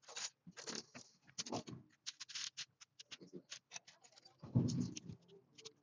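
Lego Technic pieces and their plastic bag being handled: a quick, irregular run of crinkles and clicks, with a louder dull rumble about four and a half seconds in.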